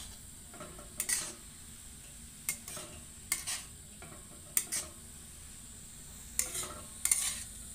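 A spoon scraping the pan in short strokes, often in pairs, every second or so, as halwa is stirred, over a steady faint sizzle. The halwa is being cooked before milk is added.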